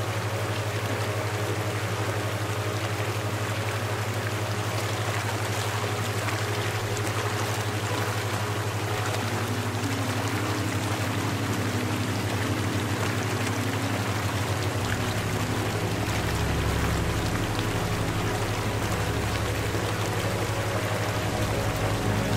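Steady rushing sound of running water, with a low, steady hum of sustained drone tones underneath. A deeper tone joins about two-thirds of the way through.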